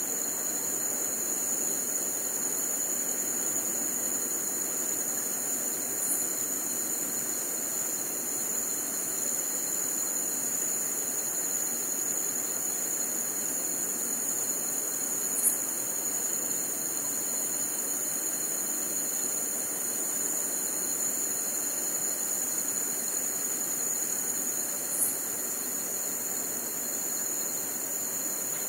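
Crickets trilling in a continuous high chorus over a soft, even background hiss. Three brief ticks stand out, roughly ten seconds apart.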